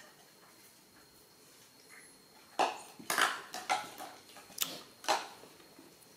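Plastic baby feeding bottles knocking and clattering on a tiled floor: a quick run of about six sharp knocks starting about two and a half seconds in and stopping about five seconds in.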